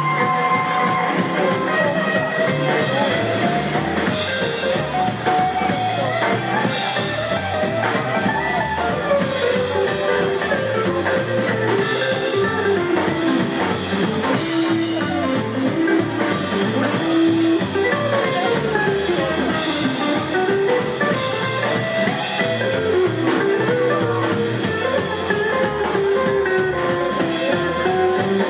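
Live rockabilly band playing an instrumental break: electric and acoustic guitars, upright double bass and drum kit, with a guitar carrying the melody.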